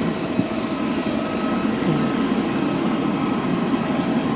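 Steady engine and airflow noise inside the cabin of a Wings Air turboprop airliner, with a few faint steady high tones over it.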